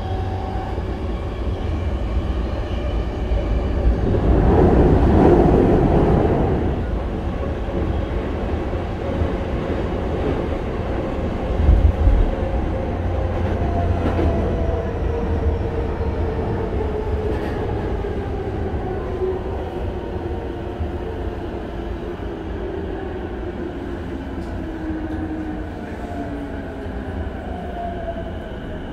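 Running sound of an E233-1000 series electric train heard from inside the car: wheel and rail noise with the Mitsubishi IGBT-VVVF inverter's traction-motor whine, which falls slowly in pitch as the train slows to a stop at a station. A louder rush of running noise swells about four to six seconds in.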